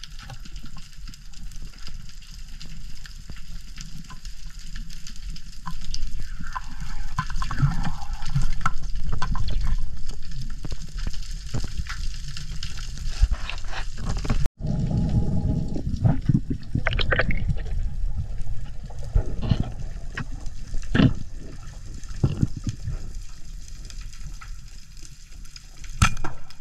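Underwater sound picked up by a diving camera: a steady low rush of water with scattered clicks and knocks from a spearfisher's movements and gear. The sound drops out for an instant about halfway through, then goes on.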